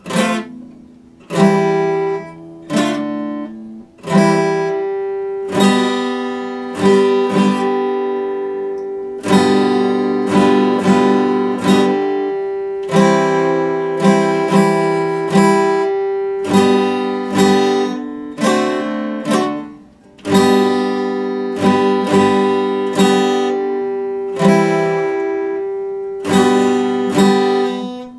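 Epiphone acoustic guitar played solo, with chords picked and strummed about once a second and left to ring. The playing pauses briefly about 1, 4 and 20 seconds in.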